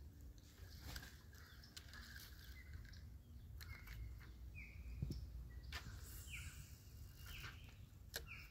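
Faint outdoor ambience: a steady low rumble with a few scattered faint clicks and a soft knock about halfway through, while a bird repeats short, quick down-sweeping chirps over the second half.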